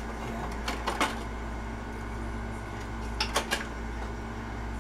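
Two short clusters of light clicks and clinks, about a second in and again a little past three seconds: a canning lid being taken out of a pot of warm lids and set onto the rim of a filled glass canning jar.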